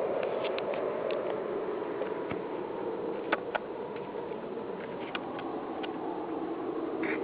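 A steady, low roaring drone of unexplained origin, the kind reported as a strange noise in the sky, with scattered sharp clicks over it, the two loudest about three and a half seconds in.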